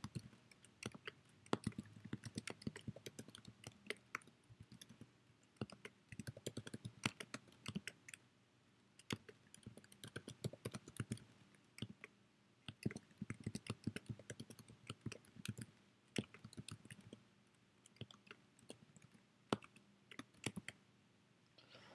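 Typing on a computer keyboard: faint key clicks in quick runs separated by short pauses.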